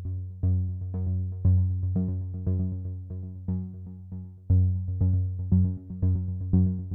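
Background music: synthesizer notes in a steady rhythm, with a strong low note about once a second.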